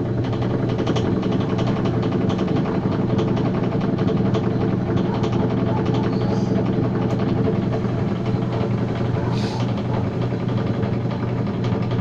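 Samsung top-loading washing machine spinning with a loud, steady mechanical noise and a fast rattle from its transmission, a noise typical of a transmission with worn bushings.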